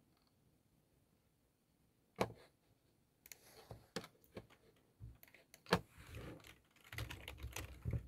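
Clicks and taps of typing on a computer keyboard, starting about two seconds in and coming quicker near the end, with two louder knocks among them.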